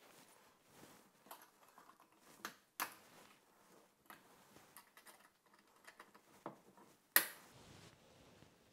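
Glass swing-top preserving jars being shut: light clicks and taps as the glass lids come down onto the jars and the wire clasps are handled, with a sharper clink that rings briefly about seven seconds in.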